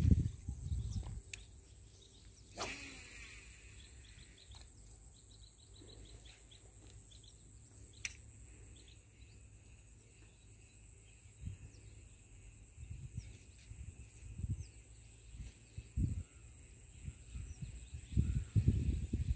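Waterside ambience: a steady high-pitched insect drone with a few faint bird chirps. There is a sharp click about two and a half seconds in, and low rumbling bursts near the end.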